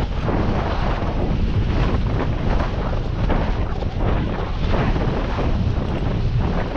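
Wind buffeting the microphone of a bicycle-mounted action camera on a downhill ride: a steady rushing noise, heavy in the low end, with irregular gusts.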